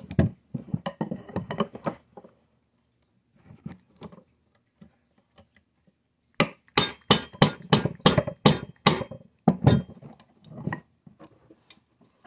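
Hammer tapping a pin punch to drive a stubborn pin out of an HW30s air rifle, metal clinking on metal. A few lighter taps at the start, then about a dozen sharp strikes, roughly three a second, beginning about six seconds in.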